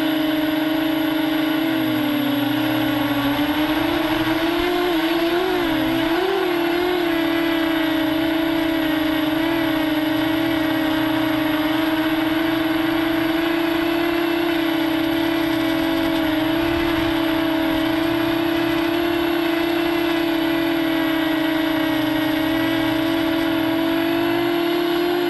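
Quadcopter's motors and propellers buzzing in flight, heard close up from a camera mounted on the craft. The steady pitched hum dips and wobbles a few seconds in as the throttle changes, then holds level.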